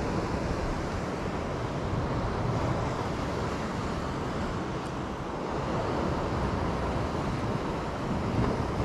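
Steady wind rushing over the microphone with the wash of sea waves behind it.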